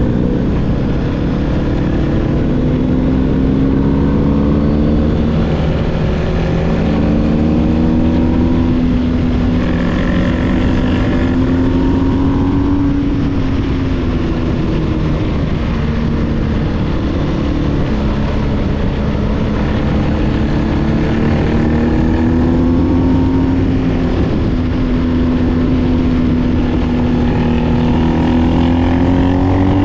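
BMW R1250GS's boxer twin running through an SC Project SC1-R GT exhaust under way, the revs rising and falling several times with the throttle and climbing again near the end.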